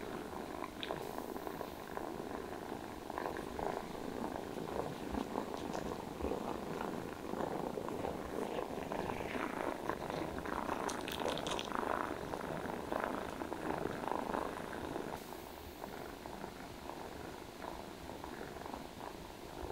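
Domestic cat purring steadily, with a few faint clicks and rustles about halfway through.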